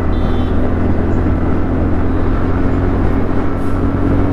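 Steady low wind rumble on the microphone over a TVS Ntorq 125 scooter's single-cylinder engine running on the move, with a faint steady engine tone.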